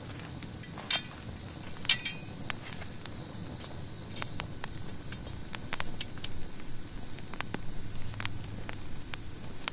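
Dry sticks and wooden poles clicking and knocking against each other as they are handled to stand up a tripod over a pile of firewood, with boots shuffling on dry dirt. A steady high hiss runs underneath.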